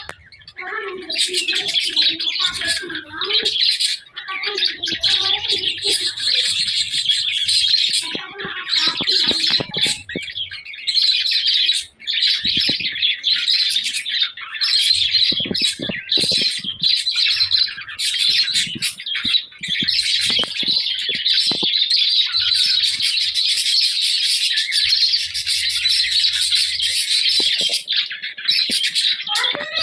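A group of budgerigars chattering and warbling without a break, many chirps overlapping at once.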